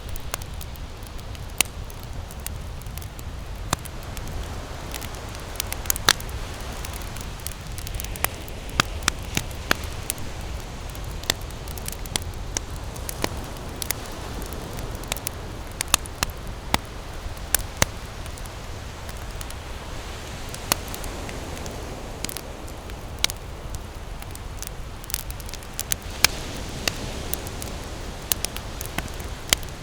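Wood campfire burning, with irregular sharp crackles and pops over a steady low rumble.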